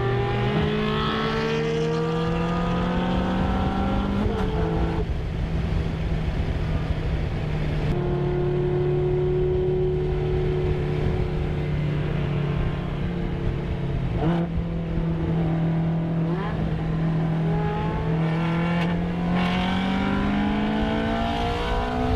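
Ferrari F430's V8 engine heard from inside the cabin while driving: the engine note rises under acceleration, drops at an upshift about four seconds in, holds steady while cruising, then climbs again and drops at another upshift near the end.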